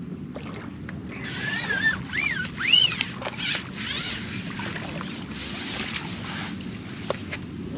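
Rushing, rubbing noise with several squeaky tones that rise and fall, loudest a little under three seconds in, while a hooked fish is played on a long carbon pole and drawn in to the landing net.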